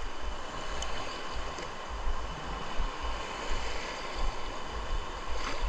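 Steady wash of seawater moving and splashing around the fisherman, with an uneven low rumble on the microphone.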